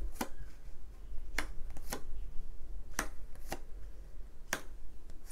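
Tarot cards being handled: about six sharp, short snaps of card on card or card on table, irregularly spaced, over a low steady hum.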